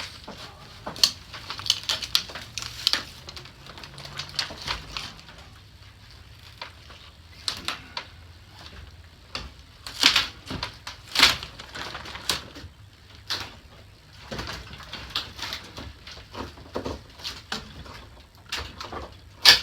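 Travel trailer interior being broken apart by hand: irregular cracks, knocks and scrapes as material is pried and split loose, with two louder cracks about halfway through.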